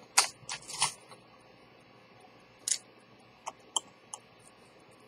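Small, sharp clicks and taps from handling a pocket-watch movement and a watchmaker's tool at the bench: three in the first second, then a few more scattered through the middle.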